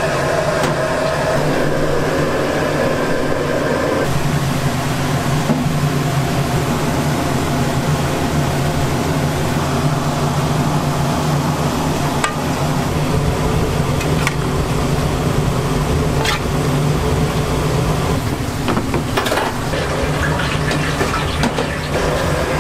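Busy kitchen with a steady loud hum from the burners under a large steaming pot, while hot soup and sauce are ladled and poured into stainless steel bowls. A metal ladle clinks against the steel bowls a few times in the second half.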